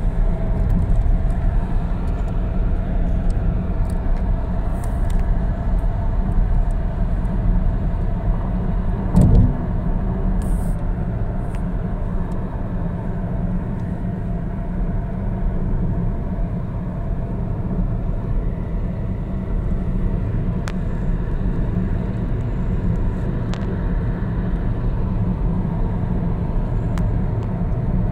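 Car driving on a city road: a steady low rumble of engine and tyre noise, with a brief thump about nine seconds in.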